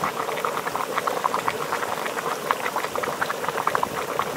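Geothermal mud pot bubbling close up: many quick, irregular plops and pops as gas bursts up through the hot mud.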